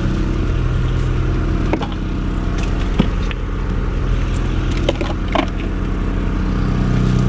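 An engine idling steadily, with a few sharp knocks and clunks of gear being handled about two, three and five seconds in.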